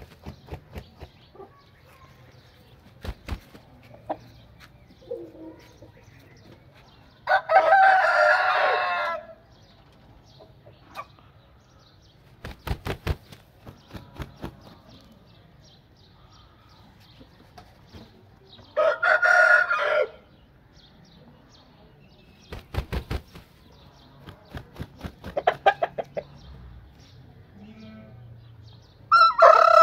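Aseel rooster crowing three times, each crow one to two seconds long and roughly ten seconds apart, the last starting near the end. Short groups of sharp clicks come between the crows.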